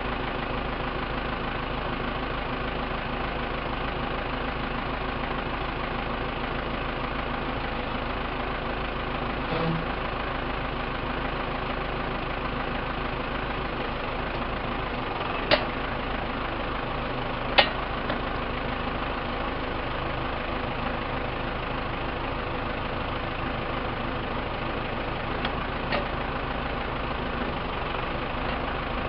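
Diesel engine of a 2003 Case 580M loader backhoe idling steadily, with two sharp clicks about halfway through.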